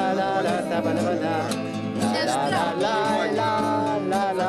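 Acoustic guitar played with singing voices over it: a man singing to his own guitar.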